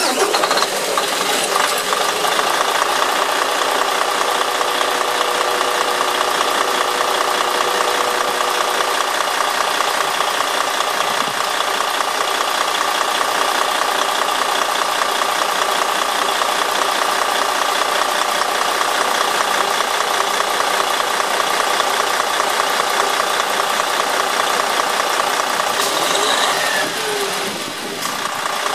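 13-litre turbocharged inline-six diesel engine of a highway coach, heard close up in its open engine bay. It catches right at the start and settles into a steady idle, briefly quieter near the end.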